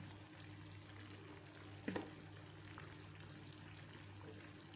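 Faint sizzling and crackling of a meat tagine cooking, over a low steady hum, with one sharp click a little under two seconds in.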